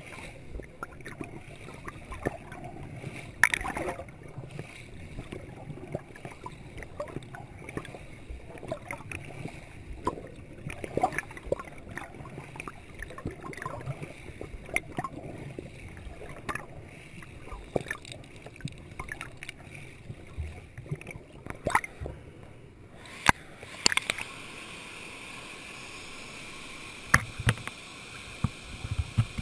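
Mountain stream heard through an underwater camera: a muffled rush of water with scattered sharp clicks and knocks. Near the end the camera comes up at the surface and a steady hiss of flowing water takes over.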